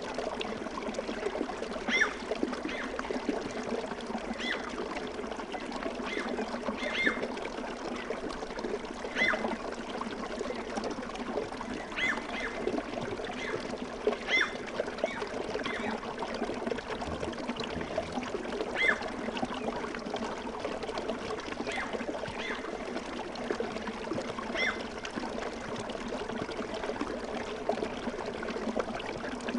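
Relaxing ambience track of steadily flowing, trickling water, with short high chirps every second or two.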